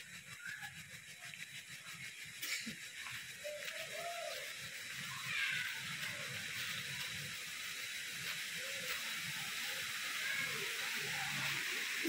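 Steady hiss of a waterfall's rushing water, growing gradually louder as the falls are approached.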